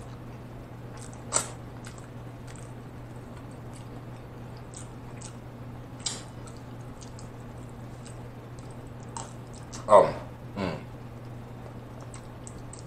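Close-miked mouth sounds of eating spaghetti: quiet wet chewing with a few sharp lip smacks, then two louder slurps that slide down in pitch about ten seconds in.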